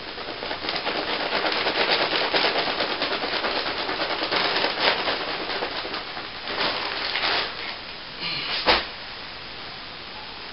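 Rough, crackly scraping made of many rapid small clicks for several seconds, then one sharp knock near the end.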